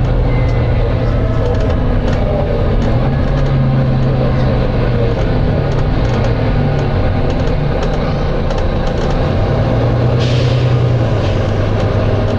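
Volvo B9TL bus running with a low diesel drone whose pitch shifts slightly. About ten seconds in there is a short hiss of air from the bus's compressed-air system.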